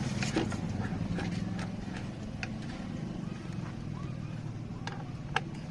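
TVS Sport BS6 motorcycle's single-cylinder engine idling with a steady, rhythmic clatter, the engine noise the bike is being repaired for. A few sharp clicks come through on top of it.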